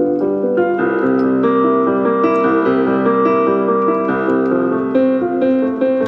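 Background piano music, a flowing melody over held chords.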